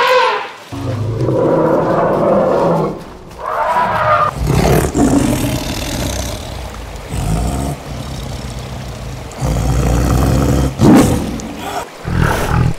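Tiger growling and roaring: a series of deep, rough calls of a second or two each, with short pauses between them.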